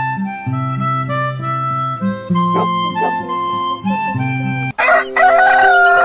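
Background music, a melody of held notes changing about every half second. About five seconds in, a rooster crows over it: one loud, long call, slightly falling in pitch.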